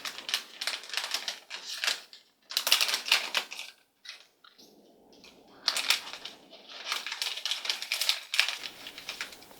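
Crinkling and rustling of a plastic surprise blind bag being torn open and handled. It comes in three bouts of irregular crackle with short pauses between them.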